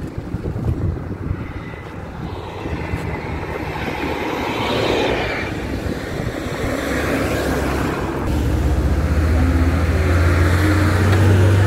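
Vehicle engine and road noise: a steady low engine drone under a noisy rush, growing louder from about eight seconds in.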